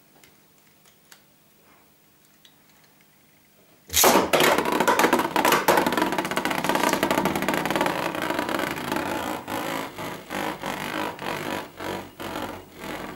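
Faint plastic clicks of a Beyblade being readied in a compact launcher. About four seconds in, the Beyblade is ripped out and lands in a plastic Zero G attack-type stadium. It spins there rattling and grinding, with rapid clicks against the stadium walls, and slowly dies down.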